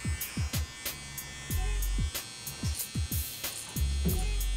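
Background hip-hop beat with deep kick drums that drop in pitch, long low bass notes and hi-hat ticks, over the steady buzz of a cordless hair trimmer edging the hairline.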